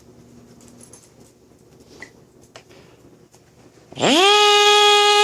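A man's voice imitating a vacuum cleaner starting up: a quick rising glide that settles into a loud, steady drone about four seconds in. Before it there are only faint clicks and shuffling.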